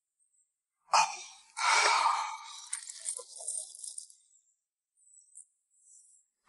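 An elderly woman cartoon character's breathy vocal sounds: a short sharp breath about a second in, then a long sigh that fades away, and another quick breath at the very end.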